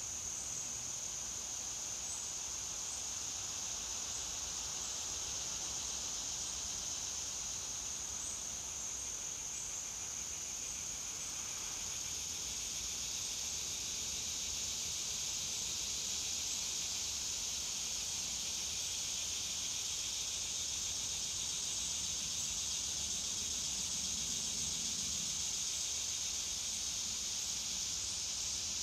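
Steady, high-pitched chorus of insects, unbroken and growing slightly louder about halfway through.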